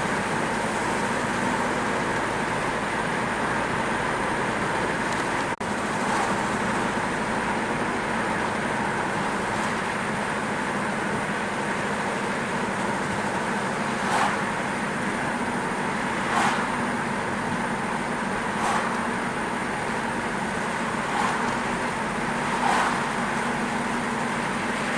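Car driving along a road: a steady rush of engine and tyre noise, with a few short louder swooshes in the second half.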